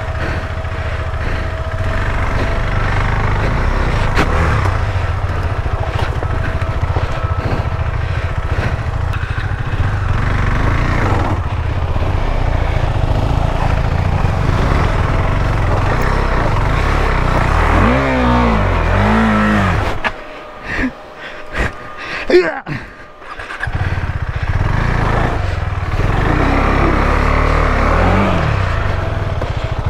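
KTM 390 Adventure's single-cylinder engine running and revving as the motorcycle rides an off-road trail. About twenty seconds in, the engine sound drops away for some three seconds, broken by a few sharp knocks, then picks up again.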